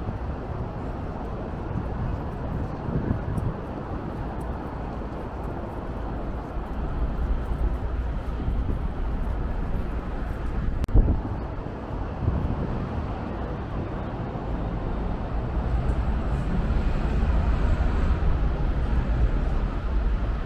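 City street ambience: a steady rumble of road traffic and general urban noise, with one sharp knock about eleven seconds in.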